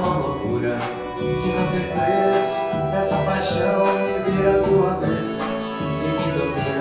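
Background music: an upbeat Portuguese-language pop song with a singer and a steady beat.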